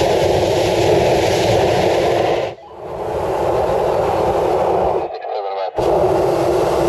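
Hot air balloon's propane burner firing in long blasts: a loud, even rush of flame that cuts off briefly about two and a half seconds in, stops again for a moment about five seconds in, then fires once more.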